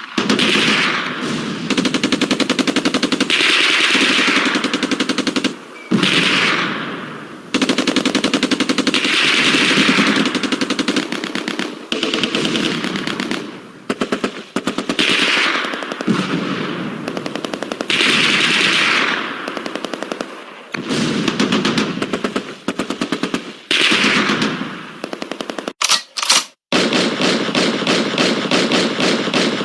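Machine gun firing in a series of long bursts of rapid shots, with brief pauses between bursts.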